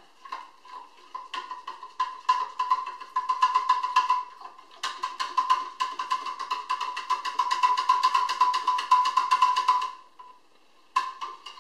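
Spoon stirring dextrose priming sugar into hot water in a clear measuring cup, clinking rapidly against the sides with a ringing tone. The clinking gets faster about halfway through and stops about ten seconds in, with a couple of last taps near the end.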